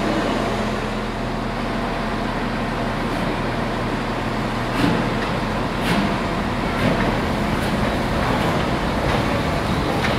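LNER B1 two-cylinder 4-6-0 steam locomotive moving slowly tender-first, a steady hiss of escaping steam over a low rumble. A few light knocks about a second apart sound near the middle.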